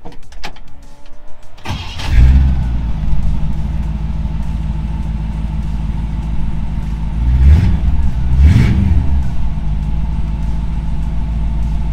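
1957 Chevrolet Bel Air's engine starting, catching about two seconds in, then idling steadily, with two quick throttle blips a little past the middle.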